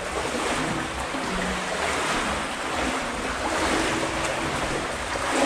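Water sloshing and swirling around legs as people wade through deep water inside a tunnel, the loudness swelling and easing with each stride.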